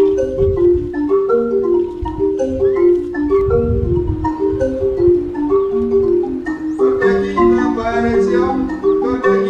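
Background music: a quick melody of short struck notes on a mallet instrument, growing fuller with a low bass line about seven seconds in.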